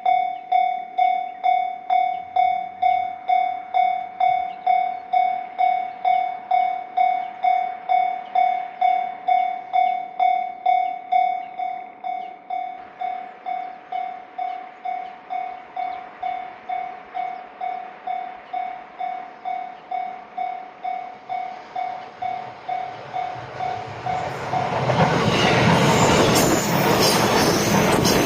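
Japanese level-crossing warning bell ringing its electronic "kan-kan" tone about twice a second; it drops in volume about halfway through. Near the end a train passes over the crossing, loud, with wheels clattering over the rails, as the bell keeps ringing under it.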